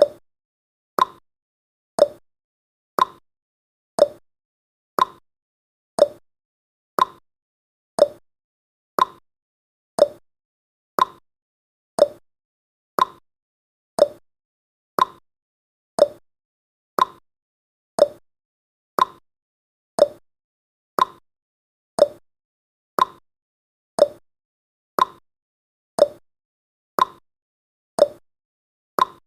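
Clock-style tick-tock sound effect of a countdown timer: one short tick each second, alternating between a higher and a lower tick.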